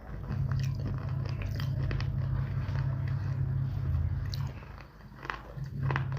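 A person biting and chewing pieces of baked clay: a run of crisp, crackly crunches, dropping off briefly near the end before a few sharp bites, over a steady low hum.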